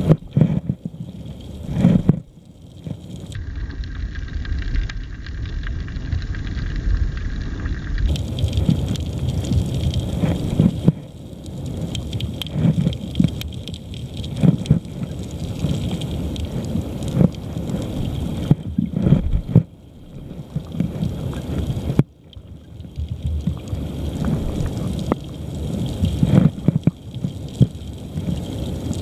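River current rushing over a rocky, gravelly riverbed, heard from a camera underwater: a low rumble that swells and ebbs, with scattered knocks.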